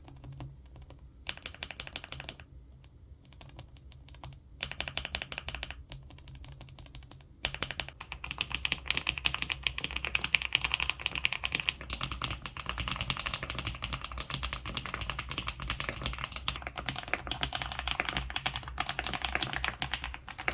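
SPM PL87W mechanical keyboard with white Mongdol linear switches being typed on: a short burst of keystrokes about a second in, another around five seconds, then steady fast typing from about seven and a half seconds on.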